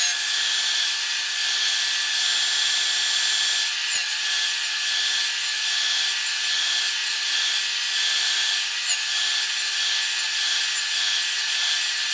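Job-site table saw running steadily with a high whine, its flat-top blade cutting the waste from between dovetail pins in a board pushed across it on a miter-slot jig.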